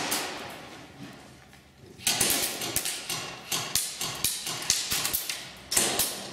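A run of sharp, irregular knocks and taps that starts about two seconds in after a quiet stretch, with a louder knock near the end.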